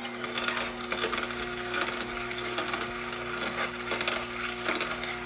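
AICOOK slow cold-press juicer running with a steady motor hum while it crushes celery stalks, with dense, irregular crackling and snapping.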